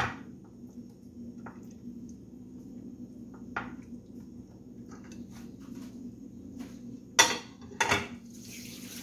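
Raw chicken pieces being set and shifted in a glass baking dish: a few light knocks and clinks of glass, with two sharper knocks near the end. Running water from a tap starts just before the end.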